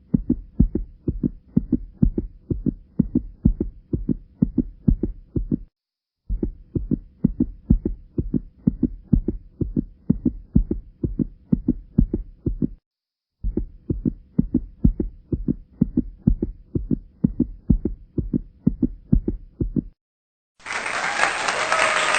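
Fast heartbeat sound effect for suspense: low paired thumps, about four a second, in three stretches of about six seconds with brief silences between them. Near the end, applause starts.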